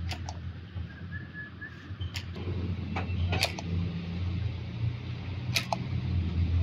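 Several sharp metallic clicks and taps from small parts of a diesel fuel injection pump being handled, over a steady low hum.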